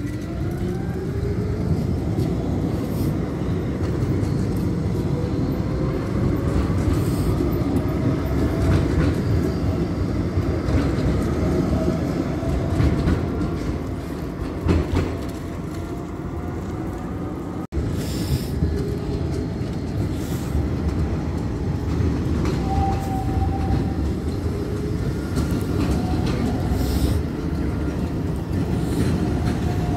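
Tram running on its rails: an electric motor whine climbs in pitch as it accelerates over the first ten seconds or so, over a steady rumble of wheels on track.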